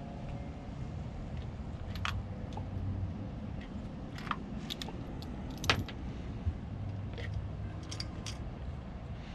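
Scattered light metallic clinks and clicks, a dozen or so, irregularly spaced, with one sharper click about halfway through: spark plugs and hand tools being handled, metal on metal.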